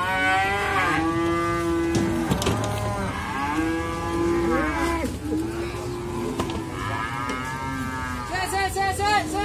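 Cattle mooing: several long, drawn-out calls one after another, some overlapping. Near the end a higher, wavering call joins in.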